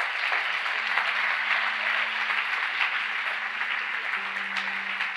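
Congregation applauding steadily, with soft sustained keyboard chords underneath that change about a second in and again near the end.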